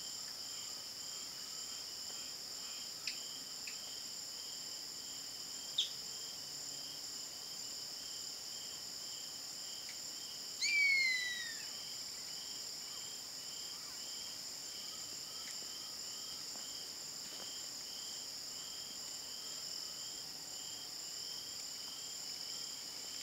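A steady high insect chorus with a regular pulsing chirp, and about ten seconds in, one loud, drawn-out, falling scream of a savanna hawk.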